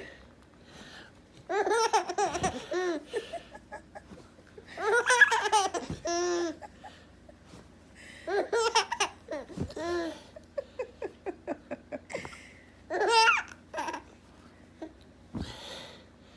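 Six-month-old baby laughing hysterically in about five separate bursts with short pauses between, including a run of quick short chuckles past the middle.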